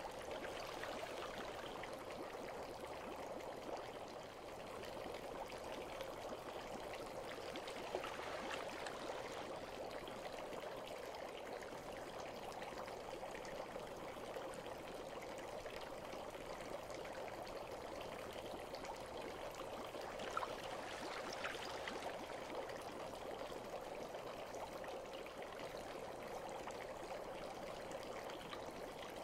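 Steady trickling and pouring of running water, an even wash of sound, with two brief louder drips about eight and twenty seconds in.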